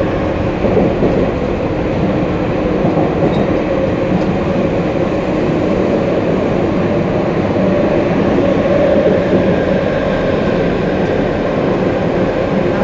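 Y500-series electric commuter train running through a subway tunnel, heard inside the car next to the gangway between cars: a loud, steady rumble of wheels and running gear with a held hum in it.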